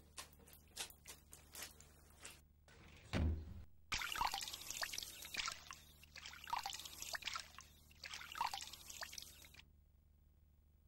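Tap water running into a washbasin while hands scoop and splash it, in three surges of splashing that stop suddenly near the end. Before it, a run of light ticks and then a single dull thump about three seconds in.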